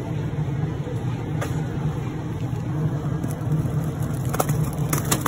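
Steady low hum of a grocery store's frozen-food aisle, from the open freezer cases and the store around them. Near the end come a few short crinkles as a hand takes a plastic-wrapped tray of frozen hash browns from the case.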